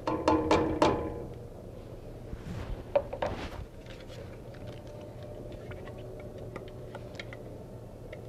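Kitchenware knocking against a pot, about four quick ringing knocks in the first second, as pureed soup is emptied back into the pot. Then comes a short scrape with a knock or two, and after that only faint light clicks.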